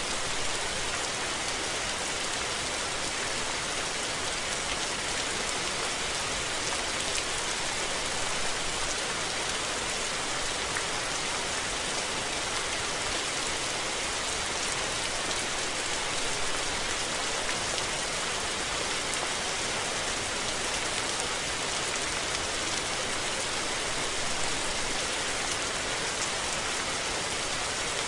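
Steady rain falling, an even hiss with scattered drops pattering on surfaces.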